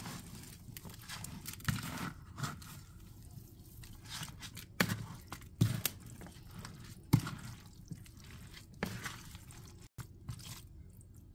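Spoon stirring a thick, wet casserole mixture of chicken, rice, beans, corn and cheese in a large mixing bowl: soft squelching and scraping, with irregular knocks of the spoon against the bowl about once a second.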